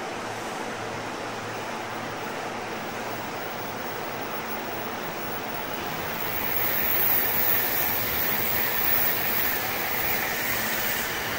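Sotetsu electric commuter train at a station platform: a steady hiss of the stopped train, then louder running noise as it starts to pull away about halfway through, with a steady motor whine beginning near the end.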